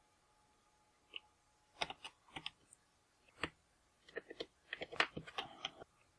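Scattered light clicks and taps in small clusters, the handling of a laptop's plastic screen casing and its screws during disassembly.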